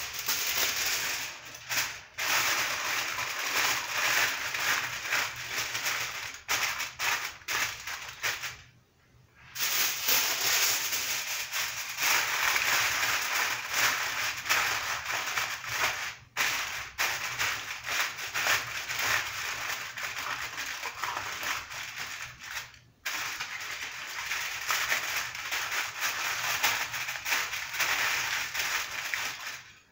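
Aluminium foil crinkling as it is spread and pressed by hand over a casserole dish, a dense crackle with a few brief pauses.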